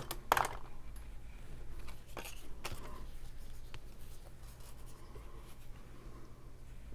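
Cardstock pieces being handled and laid down on a craft mat: a few light paper rustles and taps, the loudest just after the start, over a faint steady low hum.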